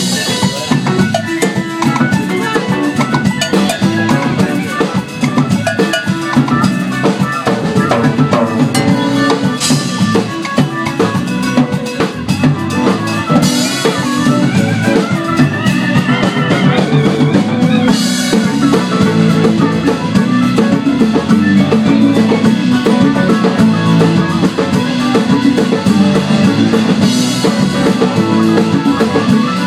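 Live band playing, with a drum kit and hand percussion keeping a busy beat under electric guitar.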